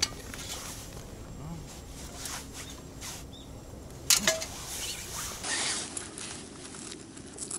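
A cooked oyster being prised open by hand: small clicks and scrapes of shell on shell, with one sharp crack about four seconds in.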